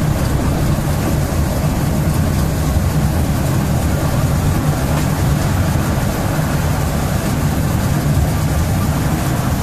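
Miniature ride-on train running along its narrow-gauge track: a steady, loud low rumble.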